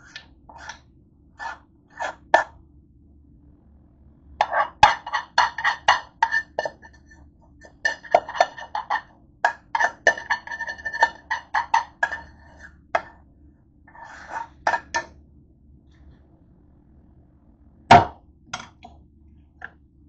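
A metal utensil clinking and scraping against a saucepan in two rapid, busy bursts, with scattered single clicks around them, then one heavy knock near the end.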